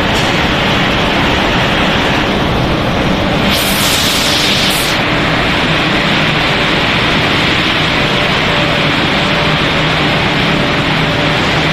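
Steady, loud running noise of a snack-pellet production line's machinery, with a burst of hiss for about a second and a half, starting about three and a half seconds in.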